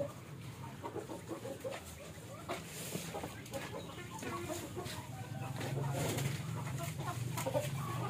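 Backyard chickens clucking, with scattered clicks and a steady low hum underneath.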